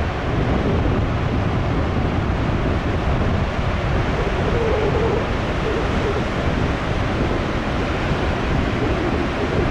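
Heavy surf after a typhoon: a steady, loud rush of large waves breaking on the coast, with wind on the microphone.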